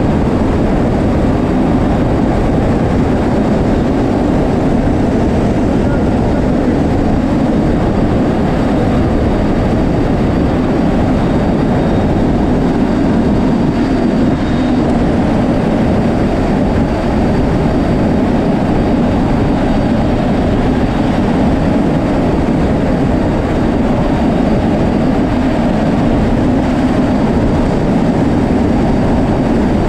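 Steady drone of a C-130J Super Hercules's turboprop engines and propellers mixed with rushing wind, heard from inside the cargo hold with the rear ramp open in flight.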